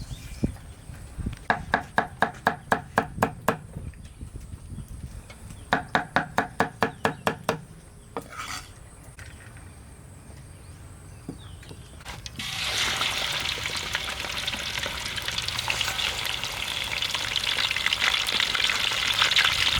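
Two runs of quick, even taps, about five a second, then food going into hot oil in a pan and sizzling loudly and steadily from about two-thirds of the way in.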